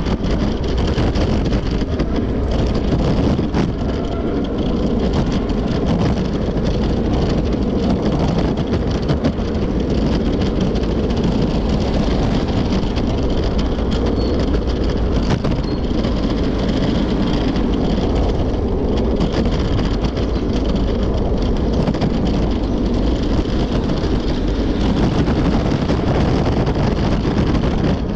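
Steady street noise of road traffic passing alongside, with wind on the microphone.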